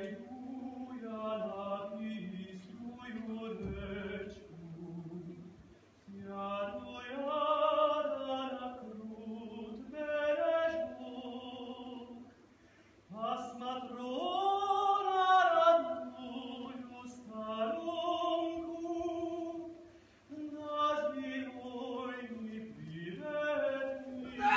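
Male tenor voice singing a Hungarian song solo and unaccompanied, in sustained phrases with short breaths between them.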